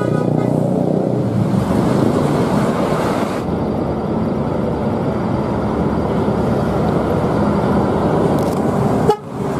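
Large coach buses driving on a road, a steady engine and tyre rumble with traffic around. The fading end of a horn note is heard at the very start. The sound drops away abruptly near the end.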